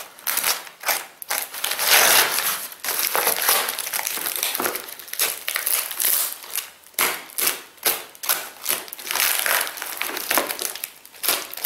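Paper and plastic packing tape being torn and crumpled off a parcel, an irregular run of ripping and crinkling bursts.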